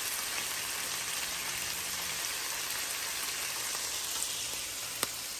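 Cauliflower in onion gravy sizzling gently in a nonstick frying pan, a steady even hiss. A single sharp click comes near the end.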